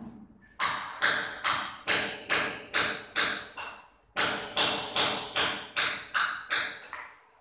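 Steady hammer blows, about two and a half a second, in two runs of about eight strikes with a brief pause between. Each blow has a short ringing note.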